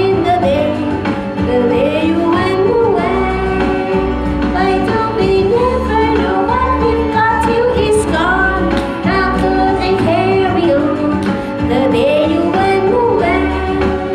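A woman singing into a hand-held microphone over backing music with a pulsing bass.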